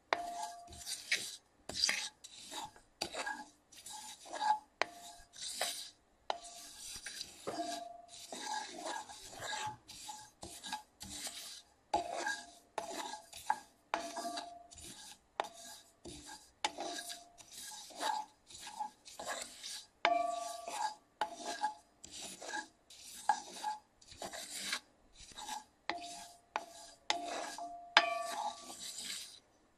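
Tan sesame seeds being stirred in a dry cast-iron skillet with a wooden spatula while they toast over a medium flame: a steady run of scraping, rustling strokes, roughly three every two seconds, as the spatula pushes the seeds across the iron.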